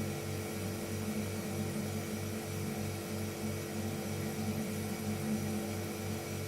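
Refrigerator running: a steady low hum with an even throb about four times a second, and several faint steady higher tones above it.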